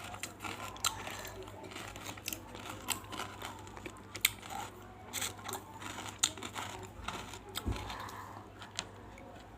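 Close-miked mouth crunching of big pieces of banslochan (tabashir, bamboo silica) being crushed with the tongue and chewed: a run of irregular sharp crackles and crunches.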